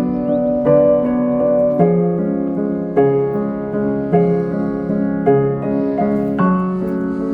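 Background music: soft piano playing slow, sustained chords that change roughly once a second.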